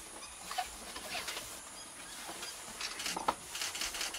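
Forest ambience: scattered short bird chirps over a steady high insect hiss, with a quicker run of ticks near the end.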